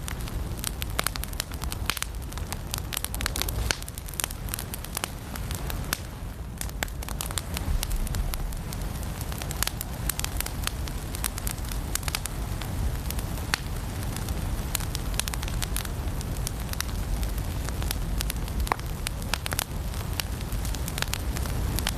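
Firewood burning in a fireplace, crackling and popping: many sharp pops scattered throughout over a steady low sound of the flames.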